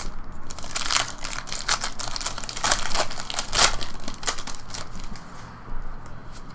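Foil trading-card pack wrappers crinkling and tearing as packs are opened and handled, in irregular rustles that are loudest between about one and four seconds in and ease off near the end.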